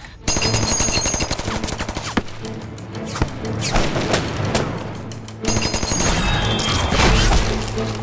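Drama sound effects of rapid machine-gun fire and scattered rifle shots, with a dense burst starting suddenly just after the opening and a second heavy burst about five and a half seconds in. Dramatic background music runs underneath.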